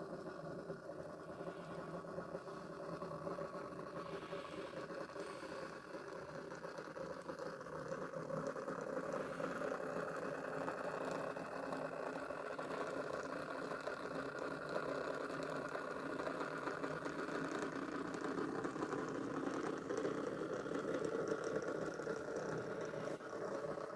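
Liliput H0-scale BR 45 model steam locomotive running on track: the motor and gears in its tender whir steadily and the wheels rattle over the rails, getting louder about a third of the way in. The owner reports drive trouble with this loco, the powered tender wheels slipping.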